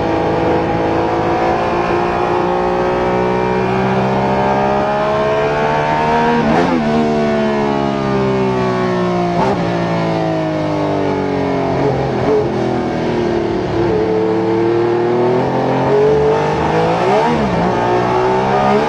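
Ferrari 312T flat-12 racing engine at speed, recorded onboard, its pitch climbing as the car accelerates and falling as it slows. Sharp breaks in pitch mark the gear changes, about five times. It climbs again through the later part and drops near the end.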